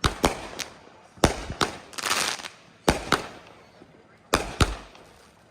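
Fireworks going off: a string of about ten sharp bangs at uneven intervals, several coming in quick pairs, with a short hissing crackle about two seconds in.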